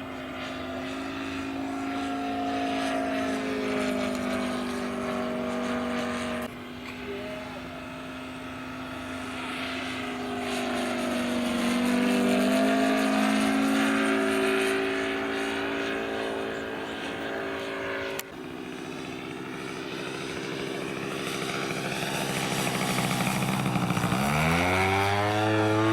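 Engine and propeller of a large-scale radio-controlled model airplane running in flight, its pitch rising and falling with throttle changes. The sound breaks off abruptly twice, at about six and eighteen seconds in, and near the end the pitch dips sharply and climbs again.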